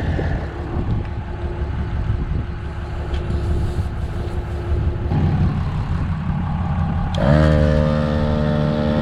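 Engine running with a low rumble; about seven seconds in, a second motor starts, its pitch rising quickly and then holding steady.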